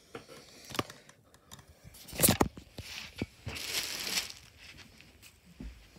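Handling noise from a hand-held camera being carried while walking: scattered light knocks, a sharp bump a little over two seconds in, and a burst of rustling about a second later.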